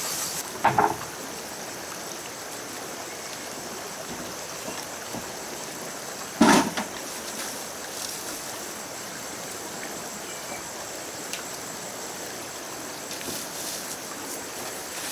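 Steady high insect buzzing over a constant hiss of forest ambience, broken twice by a short loud sound, once about a second in and once about six and a half seconds in.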